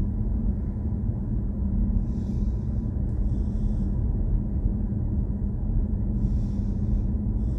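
Steady low road and tyre rumble inside the cabin of a BMW i4 M50 electric car on the move, with a faint steady hum and no engine note.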